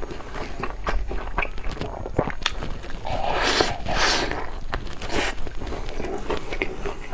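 Close-miked chewing and crunching of sauce-coated fried chicken, with many sharp wet mouth clicks and a louder, longer crunching bite about three to four seconds in.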